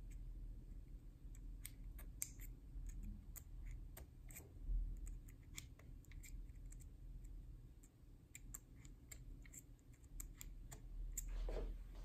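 Faint, irregular small metal clicks and taps from a safe-lock decoding tool being reset by hand, with one louder knock about four seconds in.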